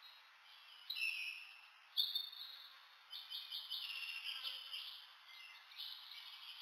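High-pitched chirping from a small animal. There are single chirps about one and two seconds in, then a fast run of repeated chirps in the middle that fades away.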